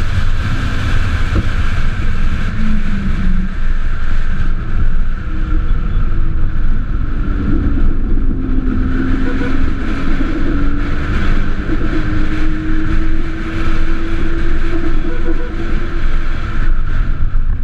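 Onboard sound of a solar race car at speed: steady wind and road rumble over the body-mounted camera, with a faint whine from the car's electric drive that rises slowly in pitch through the middle.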